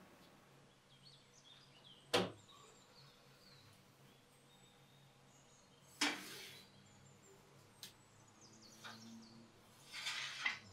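Handling sounds as an oven is opened and a glass tray of metal enamel mugs is taken hold of. A sharp click comes about two seconds in, then short scraping or clattering bursts at about six seconds and again near the end, over a faint low steady hum.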